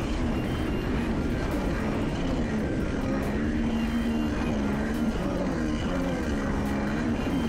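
Kawasaki 650SX two-stroke twin engine in a stand-up jet ski, running under way, its pitch rising and falling as the throttle changes, over the hiss of water spray and wash.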